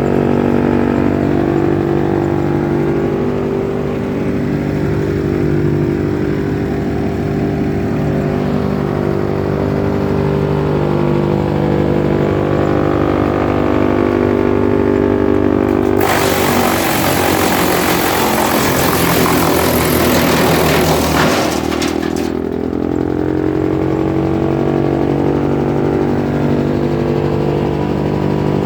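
Wood chipper running steadily on its engine. About halfway through comes a loud, harsh shredding noise lasting about six seconds as material is chipped; the engine pulls down under the load and then picks back up.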